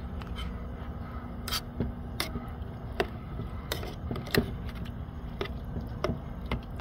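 A metal spoon stirring rice and beans in a small metal camp pot, clinking and scraping against the pot's side about eight times, over a steady low rumble.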